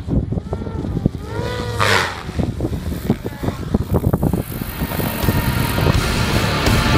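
Electric RC helicopter, a SAB Goblin 570 driven by a KDE Direct 600XF-530 Generation 3 brushless motor on 12S, in flight. The whine of the motor and drivetrain and the rotor noise sweep up and down in pitch as it passes and comes down to land, loudest about two seconds in.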